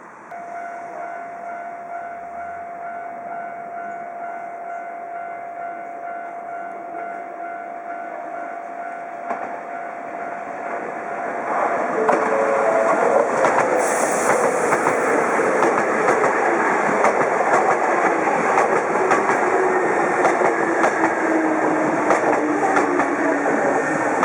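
A Hankyu electric train comes in, getting louder about halfway through. Its motor whine falls steadily in pitch as it slows for the station, and its wheels clack over the rail joints, with a brief hiss a couple of seconds after it arrives. Before it, a steady tone with a fainter pulsing tone above it sounds for about eleven seconds.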